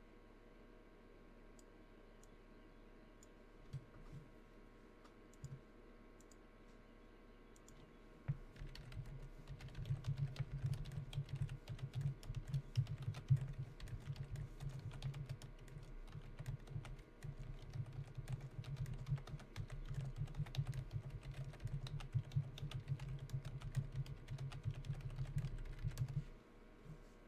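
Typing on a computer keyboard: a couple of single key clicks, then rapid continuous keystrokes from about eight seconds in, stopping shortly before the end.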